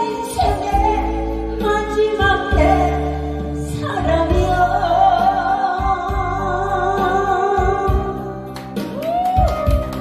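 A woman sings live into a handheld microphone over a loud backing track. Through the middle she holds one long note with vibrato.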